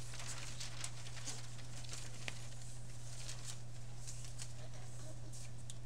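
Sheets of paper rustling and crackling in many short, irregular bits as several children turn and shuffle their script pages, over a steady low hum.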